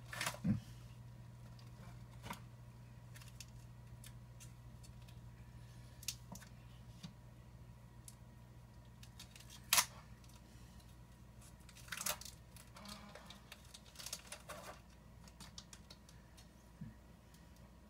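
Scattered clicks, rustles and short tearing sounds of a package being opened and handled by hand, the loudest near the middle and a cluster toward the end, over a low steady hum that stops about thirteen seconds in.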